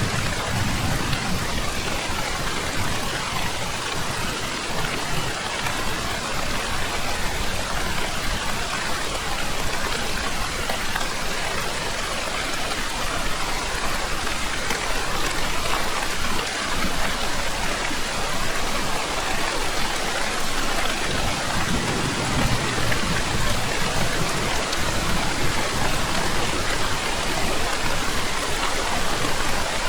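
Heavy rain falling steadily in an even downpour, with low thunder rumbling briefly near the start and again about two-thirds of the way through.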